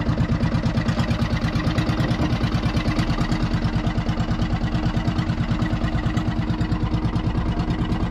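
Small fishing-boat engine running steadily with an even, rapid pulse.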